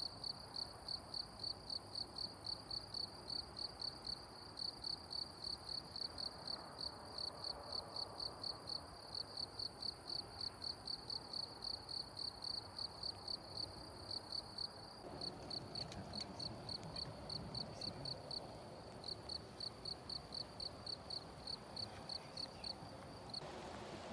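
A cricket chirping, a high, even pulse about three times a second over a faint hiss of background noise. The chirping turns more broken past the middle and stops shortly before the end.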